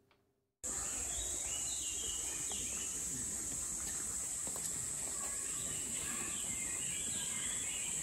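Outdoor nature ambience cuts in abruptly just over half a second in: a steady, high insect drone with birds chirping repeatedly over it.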